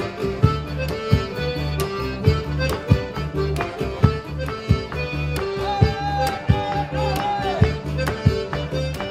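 Live folk dance music from a band with fiddle, double bass and acoustic guitar, played over a steady beat.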